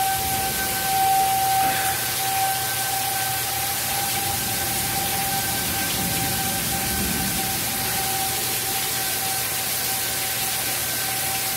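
Outdoor tornado warning siren holding one steady tone that swells and fades in loudness, over the steady hiss of heavy rain.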